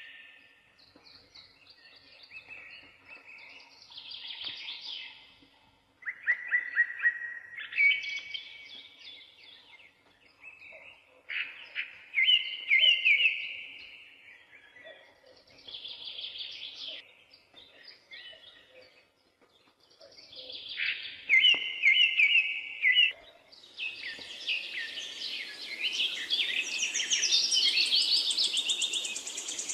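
Birdsong: short phrases of quick, high chirps with pauses between them, growing near the end into a dense chorus of several birds over a steady hiss.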